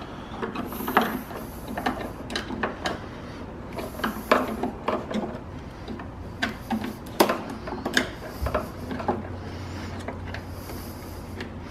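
Irregular light clicks, taps and rustling as wires and connectors are worked by hand through a plastic BMW E90 headlight housing. A low steady hum comes in about three-quarters of the way through.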